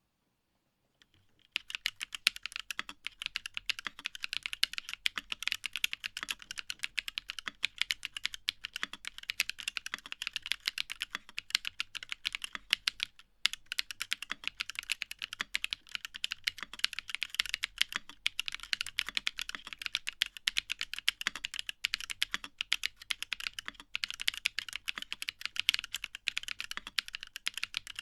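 Rapid, continuous typing on a Fuji65 mechanical keyboard with LiChicx Caramel Chocolate linear switches, JTK keycaps and an aluminium plate with no foam: many keystrokes a second. The typing begins about a second and a half in and pauses briefly just after the middle.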